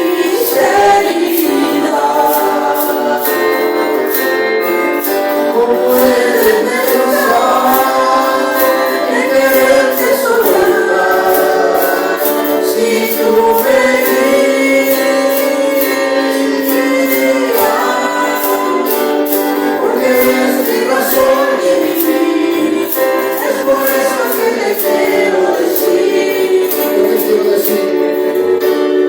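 A worship song sung by a group of voices, women's voices to the fore, with instrumental backing and a steady percussion beat.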